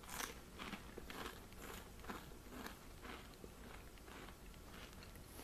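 Faint crunching of ripple-cut potato chips being chewed, about two crunches a second, tapering off after about three seconds.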